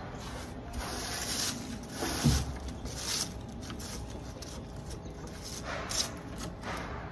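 Rustling and light handling noises from hands working a car battery swap in an open engine bay, with one dull thump about two seconds in.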